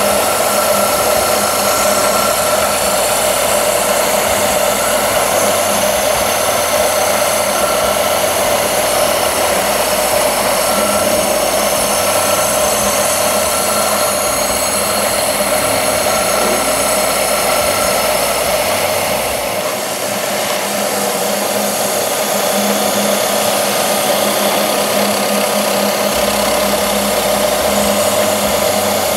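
Planetary abrasive belt polishing machine running, its belt grinding and buffing a bent brass faucet spout as it is worked through the head by hand. The sound is a steady, loud abrasive hiss over a constant machine hum, with a high whine that fades about two-thirds of the way through.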